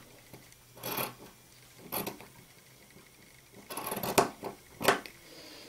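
Scissors cutting through a piece of fabric: about five separate snips, spaced roughly a second apart, with two close together near the end.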